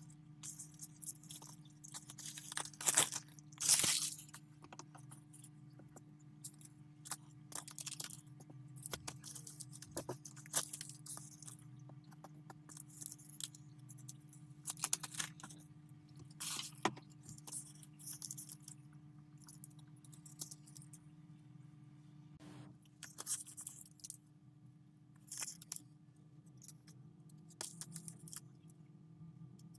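Thin metallic foil sheets and their paper backing crinkling and rustling in short, irregular crackles as they are peeled off and pressed one by one onto clear slime, loudest a few seconds in. A faint steady hum runs underneath.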